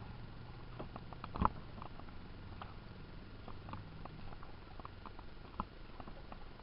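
Canoe paddling: light scattered ticks and drips of water around the canoes, with a sharp knock about a second and a half in and a softer one near the end.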